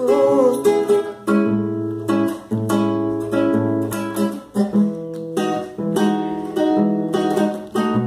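Acoustic guitar strummed in a steady rhythm, chords ringing and changing through an instrumental passage between sung lines.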